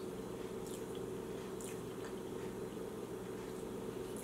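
Faint mouth sounds of someone chewing a soft, freshly baked banana cake, with a few small clicks over a steady low room hum.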